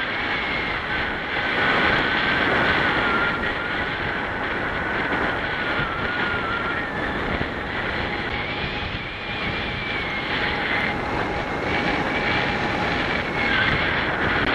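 Wind rushing over the camera microphone as a paraglider flies in a crosswind, with a thin, wavering high whistle over a steady rush.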